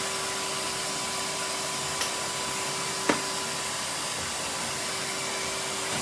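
Vacuum cleaner running steadily with a constant hum, with two sharp knocks about two and three seconds in.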